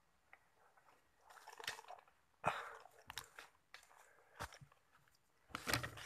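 Irregular crackling and rustling with a few sharp clicks, starting about a second in and loudest twice: handling noise as the scoped rifle is moved, mixed with dry leaves or twigs crunching.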